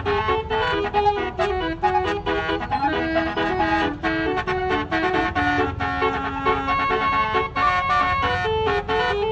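Basuri melodic vehicle horn playing a quick tune, its notes stepping up and down one after another over a low rumble.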